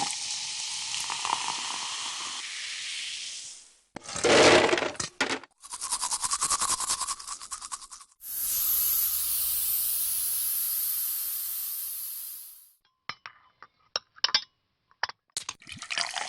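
A run of short foley effects: steady running or pouring water, a brief loud burst, a few seconds of rapid even scrubbing like tooth brushing, then a long high hiss of air escaping as from a deflating tyre, followed by a few sharp clinks and more water.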